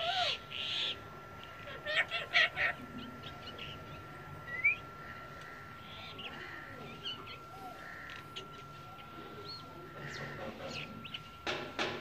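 Alexandrine parakeet making short calls and chirps, with a short rising whistle about four and a half seconds in. A faint steady high tone runs underneath.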